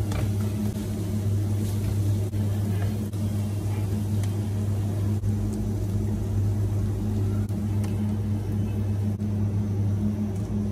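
A steady low motor hum throughout, under faint sizzling from onions and peppers frying in a pan, with a few light clicks.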